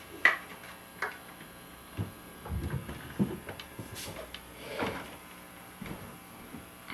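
Scattered handling sounds: a sharp knock about a quarter second in, then irregular thumps, clicks and rustles as an electric guitar is set down in a floor stand and a person gets up from a stool and walks away.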